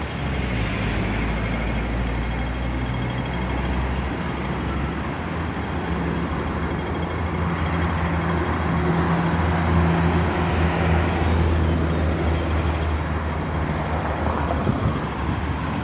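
City street traffic: engines of passing vehicles running steadily with a low hum, growing louder as a heavier vehicle passes about nine to twelve seconds in.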